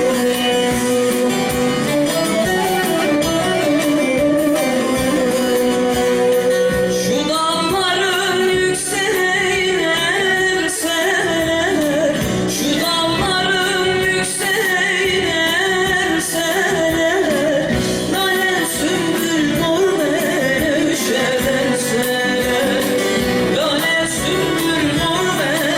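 Live Turkish folk song (türkü) with a band: an instrumental passage led by plucked strings, then a female voice comes in singing an ornamented melody about seven seconds in.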